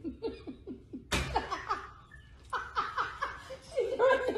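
A woman laughing in quick, repeated bursts, breaking into louder laughter about a second in and growing louder again near the end.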